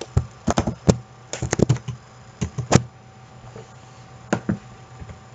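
Irregular sharp clicks and taps of a computer mouse and keyboard, about a dozen, most of them in the first three seconds and one more a little past the middle.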